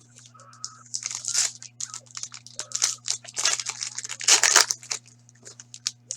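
Foil wrapper of a hockey card pack being torn open and crinkled, a run of crackling rips that is loudest about four seconds in.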